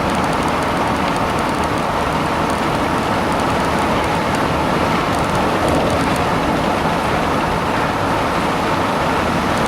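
Steady loud rushing noise of a small fishing boat under way, with water and wind noise on the microphone and no change throughout.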